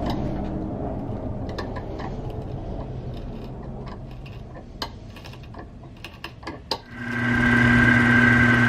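A machine's steady low hum fades away over several seconds, with a few sharp clicks near the end. About seven seconds in, a steady electric hum-and-whine starts up.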